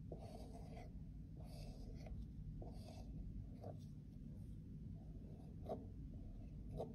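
A flat metal blade scraping caked pressed powder off a compact's lid: three short scrapes in the first three seconds, then a few sharp ticks of the blade against the case.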